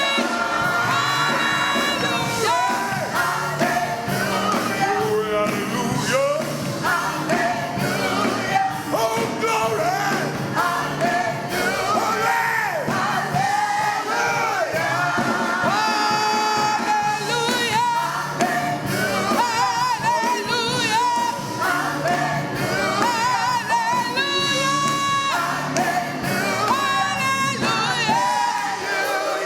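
Church worship music: singing with a wavering vibrato over a band with a steady bass line.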